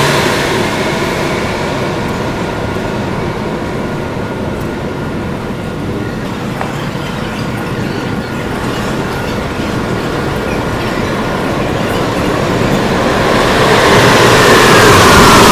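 Sped-up recording of Montreal Metro rubber-tyred trains. The whine of one train pulling out fades away in the first second, and the platform stays quieter for a while. In the last few seconds the next train comes in, growing louder, its motor whine falling in pitch as it slows.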